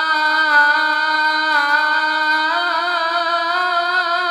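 Unaccompanied young male voice singing a naat, holding one long steady note for about two and a half seconds and then moving into a wavering, ornamented melodic line.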